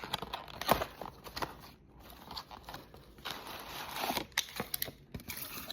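Toy packaging being opened by hand: crinkling and tearing, with scattered clicks and a denser stretch of rustling a little past the middle.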